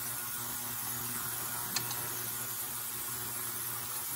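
Steady background hiss with a low hum, with one light click a little under two seconds in.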